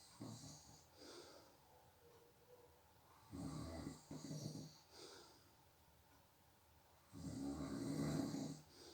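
A sleeping person snoring. There are faint breaths at first, a double snore about three seconds in, and a longer, louder snore near the end.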